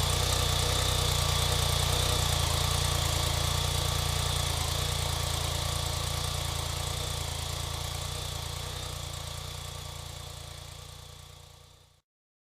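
BMW K75 three-cylinder engine idling steadily, running again once about 10 cc of oil in each dry cylinder has restored compression. The sound fades away gradually over the later seconds and cuts off near the end.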